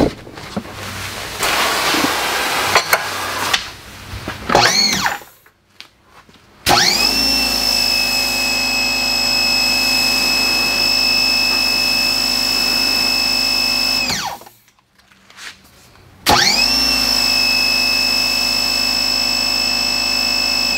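Electric pressure washer's motor and pump running as the spray gun is triggered and released. Rough and uneven for the first few seconds before winding down with a falling whine. After a short pause it starts with a rising whine and runs steadily for about seven seconds. It stops, then starts again with the same rising whine near the end.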